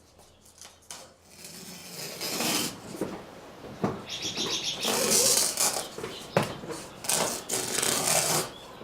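Old window screen mesh being pulled off its frame: irregular rustling, scraping and crinkling, loudest in a few hissy bursts in the second half, one with a fast crackle.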